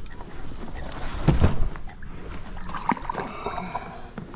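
Knocks, rustling and handling noise of a person moving about in a fishing boat, with one heavy thump about a second and a half in, over low wind rumble on the microphone.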